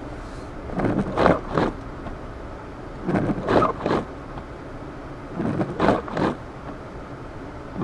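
Windshield wipers swishing across a snow-covered windshield, a short double sweep about every two and a half seconds, over the steady engine and road noise inside a car driving through deep snow.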